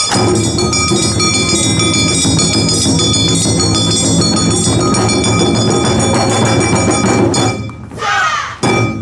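Loud music accompanying a stage dance performance, with sustained ringing chords; it drops away briefly near the end before sharper beats come back.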